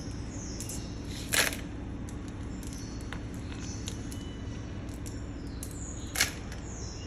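Small metal ball bearings clicking and clinking as they are sorted by hand, with two sharper metallic clicks, about a second and a half in and near the end, over a steady low hum.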